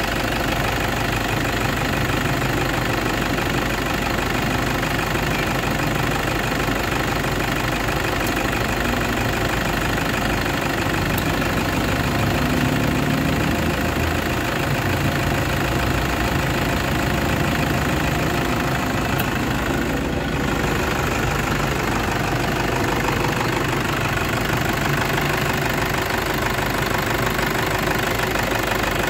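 Toyota Hilux engine idling steadily, being checked for knocks and running faults, with a brief dip in level about two-thirds of the way through.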